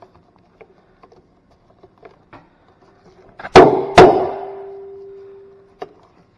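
The centre clip of a floor buffer's pad being handled and knocked into place: light clicks and rustles, then two sharp knocks about half a second apart a little past the middle, the second leaving a ringing tone that fades away until a click cuts it off.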